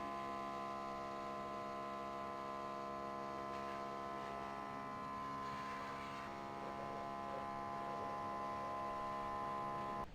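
A steady electrical hum with many overtones, unchanging in pitch, that cuts off abruptly near the end.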